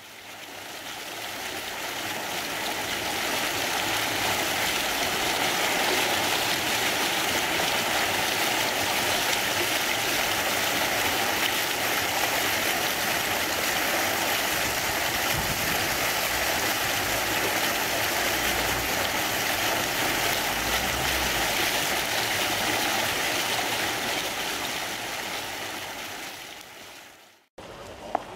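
Street fountain's four vertical jets gushing up and splashing down into a shallow basin: a steady rush of falling water that fades in over the first few seconds and fades out near the end.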